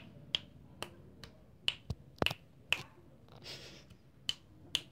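Fingers snapping repeatedly, about ten sharp snaps at an uneven pace of roughly two a second. There is a short soft rustle about three and a half seconds in.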